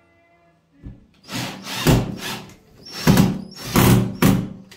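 Cordless impact driver driving a screw through a shower rail bracket into a tiled wall, in a brief blip then four bursts of whirring and hammering, the longest running over a second.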